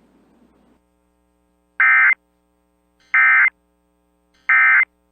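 Three short bursts of NOAA Weather Radio SAME digital data, each about a third of a second and a little over a second apart: the Emergency Alert System end-of-message code that closes the warning broadcast.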